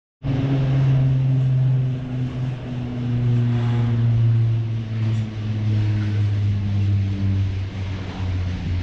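Aerial cable car's ropes and station machinery running with a loud, steady low hum that steps down in pitch a few times.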